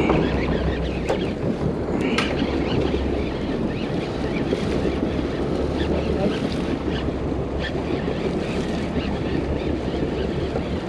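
Sound on a fishing boat at sea: a steady low drone, water sloshing against the hull and wind on the microphone. Two sharp clicks about one and two seconds in.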